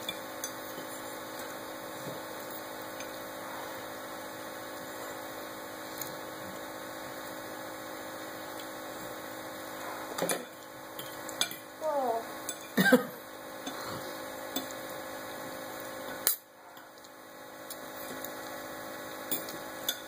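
Steady background hum with scattered clicks and clinks of forks against a bowl and plastic high-chair tray, bunched about ten to thirteen seconds in, with a short gliding voice sound in among them; a single sharper click comes about three seconds later.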